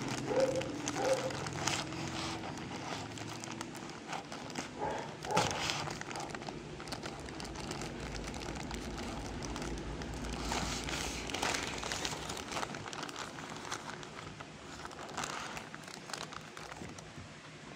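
Plastic courier mailer bag crinkling and rustling as it is handled and cut open with scissors, with many short sharp snips and crackles.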